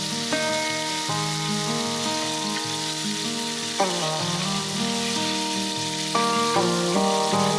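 Food sizzling as it fries in a hot pan, under instrumental background music with sustained chords that change twice.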